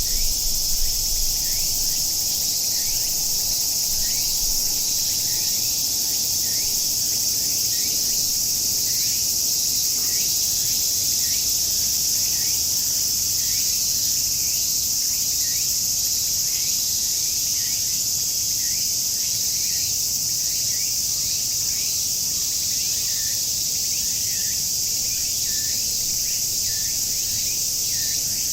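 Cicadas singing in chorus: a loud, steady, high-pitched shrilling drone that does not let up. Underneath it, short rising chirps repeat about once or twice a second.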